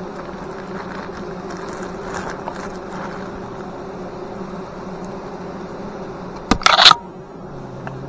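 Honeybees buzzing in a steady hum. About six and a half seconds in comes a short, loud crackle lasting under half a second, the loudest sound here.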